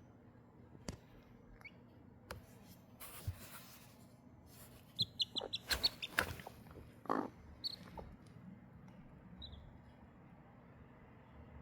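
Chicks peeping in a quick run of short, high cheeps around the middle, with a few more single peeps later. A lower call from the hen comes just after the run, and there are soft rustles and clicks.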